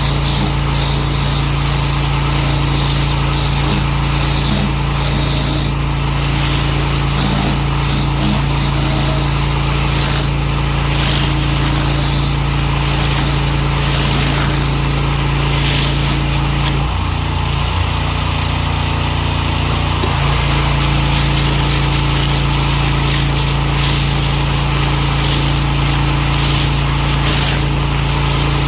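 Pressure washer running steadily, its motor note shifting for a few seconds about two-thirds of the way through. The hiss of the water jet comes and goes over it.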